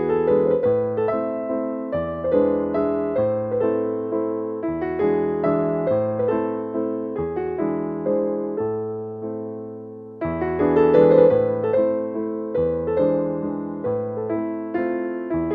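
Background music played on electric piano: a steady run of notes with a new phrase starting about two-thirds of the way through.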